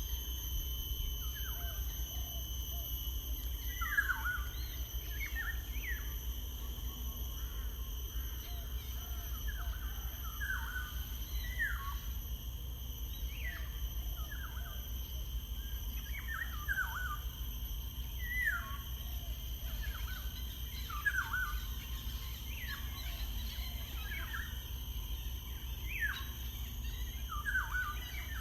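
Birds calling with short, falling chirps repeated every second or two, over a steady background hiss and low rumble.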